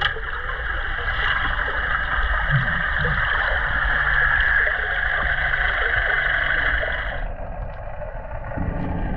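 Boat motor running steadily with water noise. A hiss over a low rumble, the upper hiss cutting off about seven seconds in.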